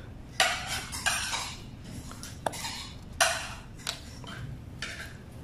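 A small plastic vial being opened and handled by hand: several short scraping, rustling strokes of plastic and packing paper, with two sharp clicks.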